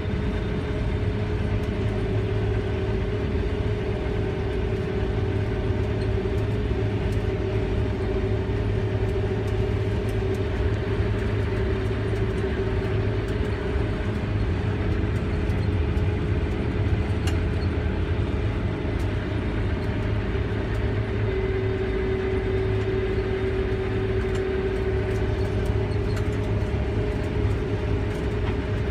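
Combine harvester running steadily while cutting wheat, heard from inside the cab: a constant engine and machinery drone with a steady hum and low rumble.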